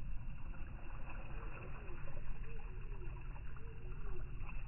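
Water trickling and splashing as a cast net is gathered and lifted out of shallow water, with scattered small ticks, over a steady low rumble of wind on the microphone.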